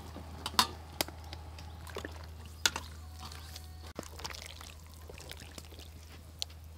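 Liquid pouring and splashing in a large wok as a bowl of cut food is tipped in and stirred with a wire strainer. Sharp metal clinks from the strainer and bowl against the wok come about half a second and a second in, and again briefly later, over a steady low hum.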